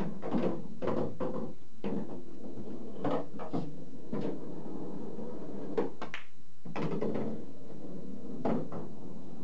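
Pool cue striking the cue ball and pool balls clacking together: a scattered series of sharp knocks over several seconds.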